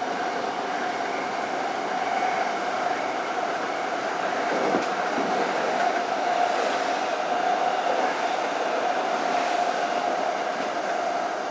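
Toyo Rapid Railway 2000 series electric train running through a subway tunnel, heard from inside the lead car: a continuous rumble of wheels on rail with a steady tone. An oncoming train passes on the adjacent track partway through.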